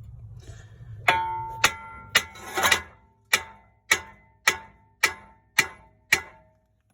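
Hammer striking a screwdriver set in a seized brake-rotor retaining screw, about ten ringing metal blows at a steady pace of roughly two a second, to shock the stuck screw loose.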